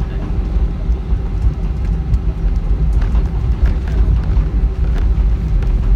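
Airbus A320 airliner's jet engines and airframe heard from inside the passenger cabin: a loud, steady low rumble with a constant hum above it and a few faint rattles.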